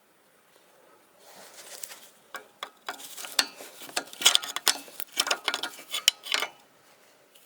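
Metal tools and parts clinking and clattering in a quick run of sharp clicks and knocks, starting about a second in and stopping about a second before the end.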